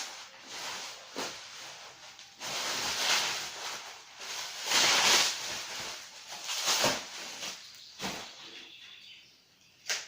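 Packaging rustling and crinkling in irregular bursts as it is handled, with a few sharp clicks; the loudest burst comes about halfway through.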